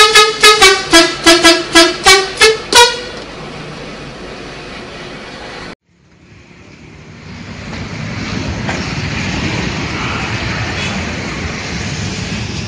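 Bus telolet horn playing a quick run of toots that alternate between a lower and a higher pitch, about a dozen notes, stopping about three seconds in. A steady low hum follows, then after an abrupt cut a rumble of vehicle noise rises and holds.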